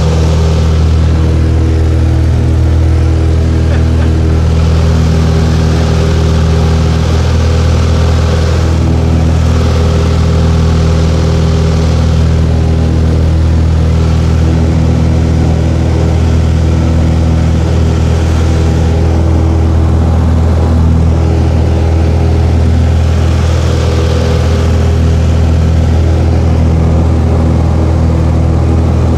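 Cessna 172's piston engine and propeller droning steadily in flight, heard loud from inside the cabin, with a hiss of rushing air over it.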